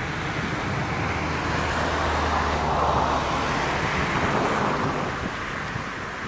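Airbus A319's twin jet engines at climb power as the airliner departs and climbs away: a broad rush of jet noise that swells to its loudest about halfway through, then slowly fades.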